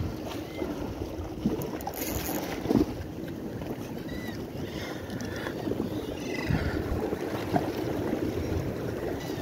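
Sea water washing and foaming against shore rocks, with wind on the microphone.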